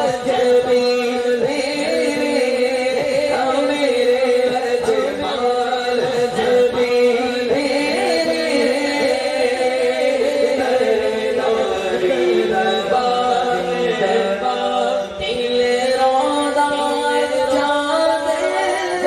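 A man singing a Punjabi naat, a devotional song in praise of the Prophet, unaccompanied into a microphone over a PA system, in long drawn-out melodic phrases. Another man's voice holds steady notes underneath.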